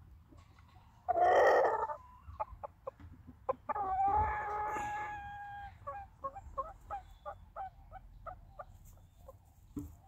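Gamefowl rooster crowing: a long held note about four seconds in, followed by a run of short clucks, about three or four a second. A loud, harsh burst comes about a second in.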